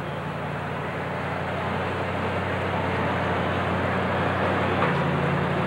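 Super Stock pulling tractor's alcohol-burning engine running at full power under load as it pulls the sled, a steady drone that slowly grows louder.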